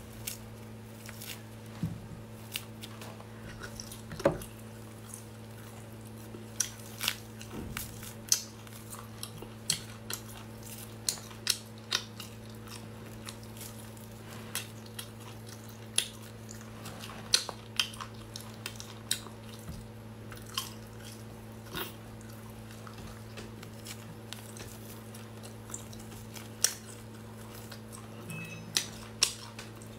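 Air-dried duck neck being torn apart by hand and chewed: irregular sharp cracks and crunches, roughly one every second or two. A steady low hum runs underneath.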